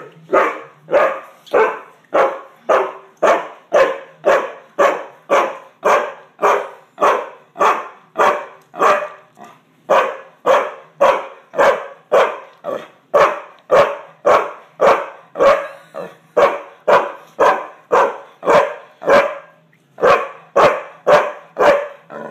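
A chocolate Labrador retriever barking over and over in a steady rhythm, close to two barks a second, with one short pause near the end.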